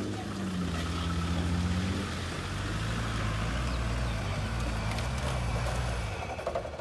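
Classic Range Rover's engine pulling at low speed as the 4x4 crawls up a steep dirt mound, running steadily and dropping away about six seconds in.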